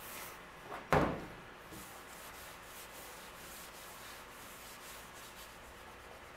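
Shop towel rubbing over bare, sanded truck sheet metal as it is wiped down with solvent to clean it for primer. The rubbing ends with a single sharp knock about a second in, followed by low steady shop noise.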